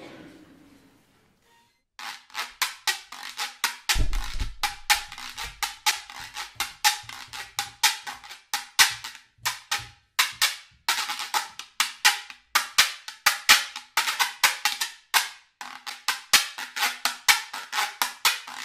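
Güiro scraped with a stick in a fast solo rhythm, starting about two seconds in: quick rasping strokes, short and long, in phrases broken by brief pauses.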